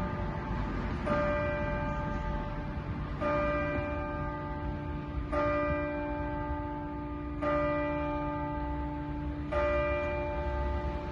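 Church tower clock bell striking the hour for ten o'clock. Five strokes about two seconds apart, each ringing on until the next.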